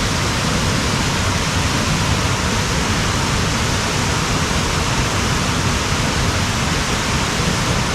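Waterfall rushing: a loud, steady, unbroken wash of falling water.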